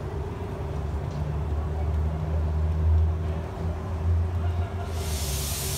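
Live steam 0-4-0 locomotive standing in steam over a low steady rumble, with a loud burst of steam hiss lasting just under a second near the end.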